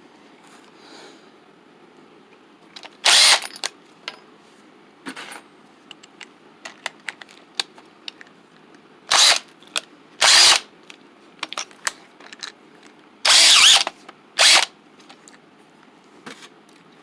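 Power drill run in about six short bursts, with small clicks and knocks between them, as the bit is worked in and out of a hole in wood to clear the sawdust.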